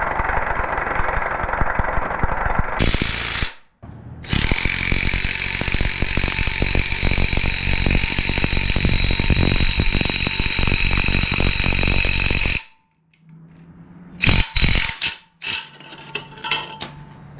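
Impact wrench hammering rapidly as it drives the bolt of an exhaust pipe expander, spreading the expander's jaws to stretch the pipe end. It runs in two long bursts with a brief stop about four seconds in and cuts off near the end, followed by a few metal clinks of the tool being handled.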